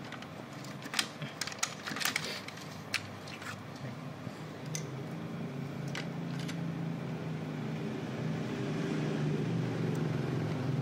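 Sharp plastic clicks and snaps as the feed rollers and a plastic retaining clip are worked off their shaft in a Ricoh MP 5001/5002 paper feed unit, most of them in the first few seconds. From about halfway a low steady hum grows louder underneath.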